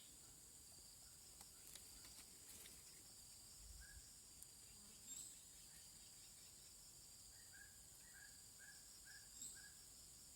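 Faint outdoor ambience of insects trilling steadily at a high pitch. Near the end comes a run of about six short chirps, evenly spaced.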